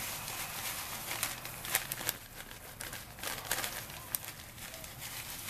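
Coarse rock salt pouring from a bag into a plastic container: a steady hiss of falling grains with irregular sharp ticks as they land.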